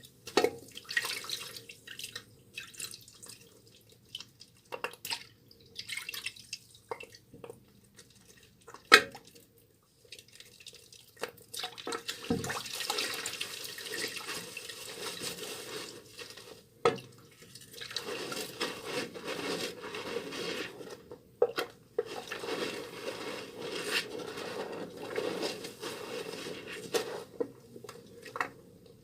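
Soaked, softened bar soap being squished and lathered with wet hands. Scattered wet squishes and a few sharp taps give way, about twelve seconds in, to longer stretches of steady wet rubbing.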